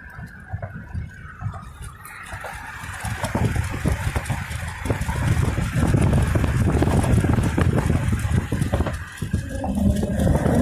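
Wind rushing and buffeting into a moving car through an open side window, with tyre and road noise, swelling much louder a few seconds in.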